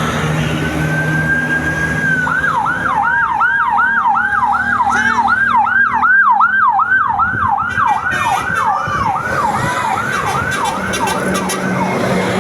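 Tour bus telolet horn sounding a siren-like pattern. A short steady tone is followed by a long run of quick falling whoops, about three a second, which stops near the end. A low hum runs underneath.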